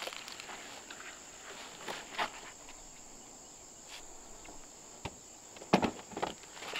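A knife cutting young squash off the vine: a few short sharp snaps and leaf rustles, two close together about two seconds in and a louder cluster near the end, over a steady high insect drone.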